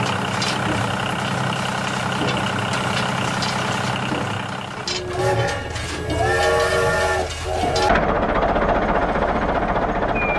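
Small toy motor whirring steadily, then a battery toy steam locomotive sounds its whistle, a chord of horn-like tones lasting about two and a half seconds. A steady hiss follows.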